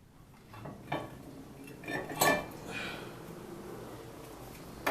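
Several separate sharp metallic clinks and clanks, the loudest a little past two seconds in, from steel disc-brake caliper and pad parts and tools being handled while worn brake pads are worked out.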